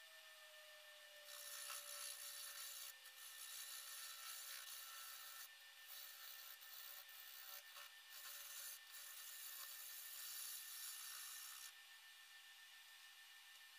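Apple wood being cut by a hand-held tool: a rough scraping hiss in long passes, broken by short pauses, that stops about twelve seconds in.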